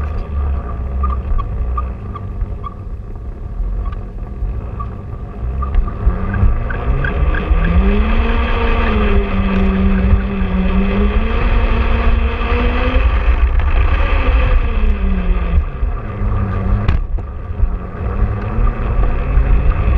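Electric motor and gears of a G-scale model railway wagon whining, the pitch rising as it speeds up, holding, then falling and rising again near the end, over a steady rumble of wheels on the track.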